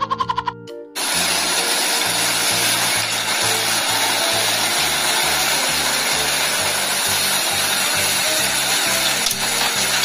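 A short plucked melody, then from about a second in a loud, steady machine noise of a Hyundai HW160 wheeled excavator running as it digs and loads dirt. Background music with a steady, repeating bass line plays underneath.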